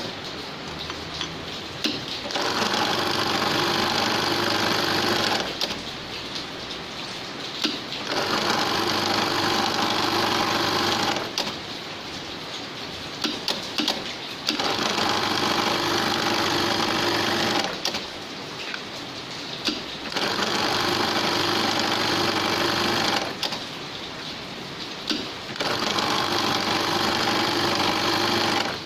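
Pengpeng sewing machine for punching and stitching holes in caps, running in repeated cycles: five loud stretches of about three seconds of fast stitching, with a quieter steady machine hum between them.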